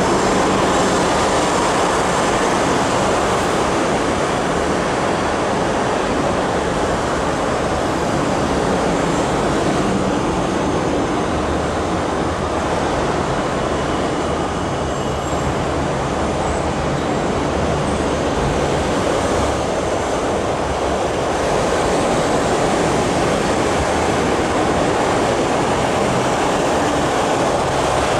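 MTR Kwun Tong Line C-Train electric metro train running along elevated track: a steady rumble of wheels on rail with some wheel squeal. The sound eases a little midway and builds again near the end as the train passes.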